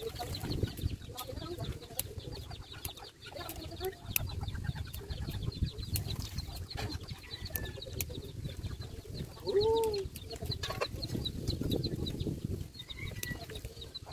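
Chickens clucking, with one louder call that rises and falls about ten seconds in, over a low rumble.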